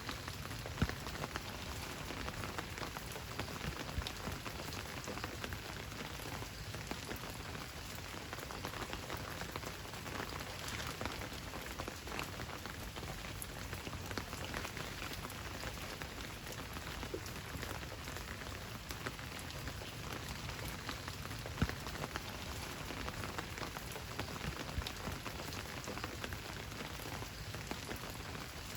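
Steady rain falling on a surface, a dense patter of drops with an occasional louder single drip, twice.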